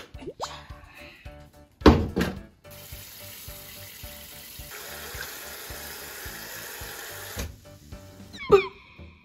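Kitchen sink faucet's pull-out spray head running onto sliced beef feet in a pan: a steady rush of water for about five seconds, starting about three seconds in. A loud knock comes about two seconds in, and light background music plays throughout.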